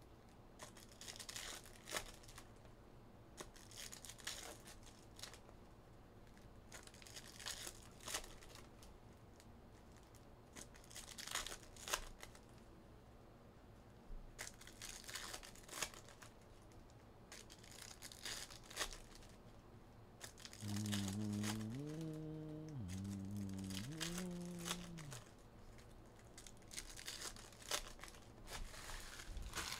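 Trading-card hobby packs being torn open and their foil wrappers crinkled while cards are handled and stacked, heard as a string of short crackly rustles. About two-thirds of the way through, a brief low hum rises and falls in pitch for a few seconds.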